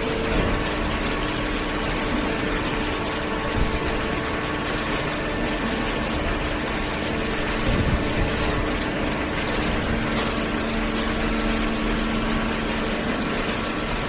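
Steady machine drone with several constant hums from a running hydraulic waste-paper baler line, its belt conveyor carrying cardboard up to the press.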